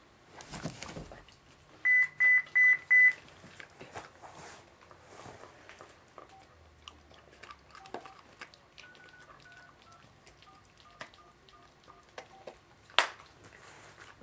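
Four loud, evenly spaced electronic beeps of one high pitch about two seconds in, then a run of fainter short beeps at several lower pitches, like keypad tones. A single sharp click comes near the end.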